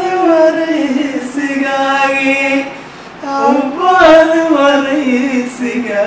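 A man singing unaccompanied, holding long notes that slide up and down, in two phrases with a short break about three seconds in.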